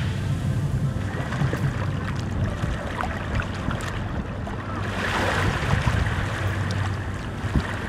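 Ocean surf washing ashore, with wind buffeting the microphone in a low steady rumble; a wave surges up about five seconds in.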